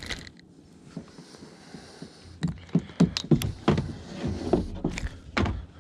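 Irregular clicks and knocks, mostly in the second half, from a small largemouth bass and its lure being handled and unhooked against a plastic kayak.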